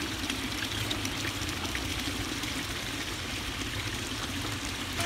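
Water pouring steadily from a row of wide sheet spouts of an outdoor fountain and splashing into a stone trough below, an even rushing splash throughout.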